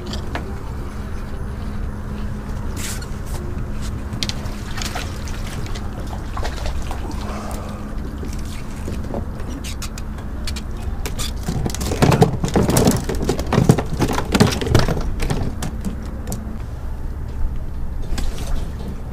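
Water sloshing against the kayak and dock pilings over a steady low hum that stops about sixteen seconds in. From about twelve to fifteen seconds in comes a run of loud splashes and knocks as a small crappie is lifted out of the water on the line.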